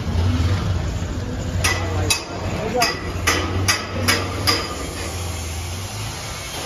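Metal being struck: about eight sharp, ringing knocks close together between two and five seconds in, over a steady low hum that fades about six seconds in.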